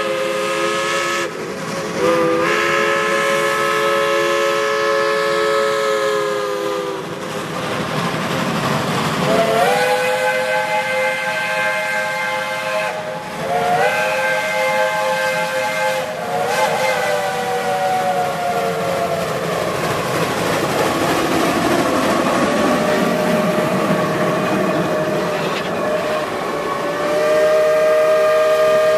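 Steam locomotive chime whistles from a multi-headed train of geared Climax and Shay engines, blowing a string of long blasts in different chords with short breaks between them. Hissing steam runs under and between the blasts.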